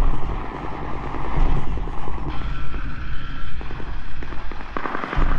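Loud low rumble with dense crackling and popping, the crackle thickest in the second half.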